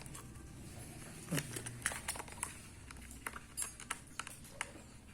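Scattered small clicks and taps of hands handling a drone battery's packaging and contents.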